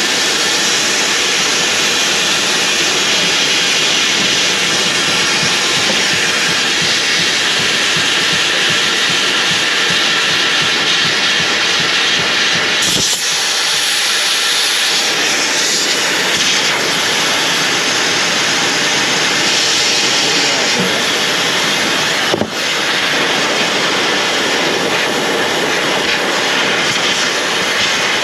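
Compressed air hissing steadily out of a heavy truck's air system as the stored air bleeds off, briefly dipping twice.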